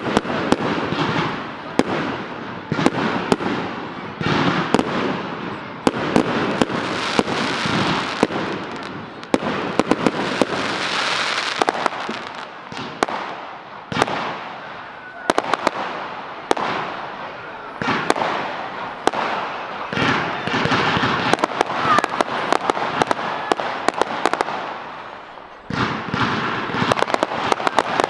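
Fireworks display: aerial shells bursting one after another, with sharp bangs over a continuous crackle. There is a brief lull about three-quarters of the way through, then a dense volley of bangs near the end.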